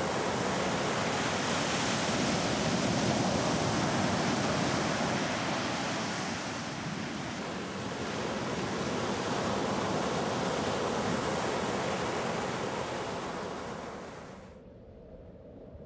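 Ocean surf breaking on the shore: a dense, steady wash of waves that swells and eases, then fades away near the end.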